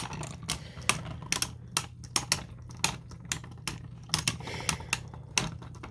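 Spinning Beyblade tops, a 3D-printed one against a Zone Luinor, clashing in battle: sharp, irregular clacks, about two or three a second.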